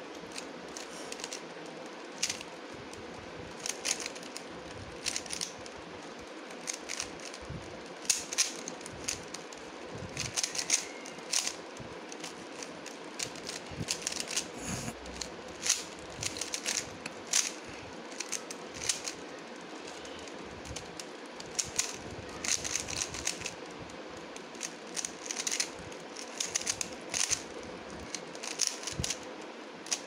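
A 3x3x3 Rubik's cube being speedsolved: plastic layers clicking as they are turned in quick runs of turns, with short pauses between runs. A faint steady hum lies under it.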